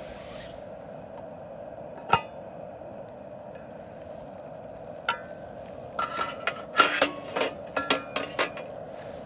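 Cookware and tableware clinking: one sharp knock about two seconds in, then a run of clinks and knocks with a short metallic ring from about five seconds to near the end, over a steady background hum.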